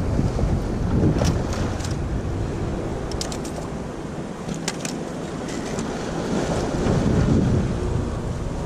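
Sea waves washing and splashing against a rocky shoreline, with wind buffeting the microphone as a steady low rumble. A few short sharp ticks come about a second in and again around the fourth and fifth seconds, and the wash swells louder near the end.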